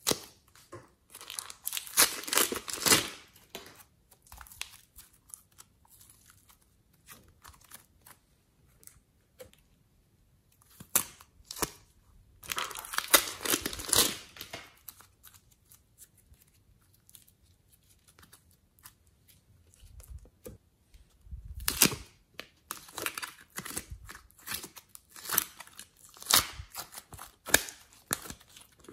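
Plastic piping bags crinkling and rustling as clay is squeezed out of them, in three spells of a few seconds each. Scattered small clicks and taps of plastic come between the spells.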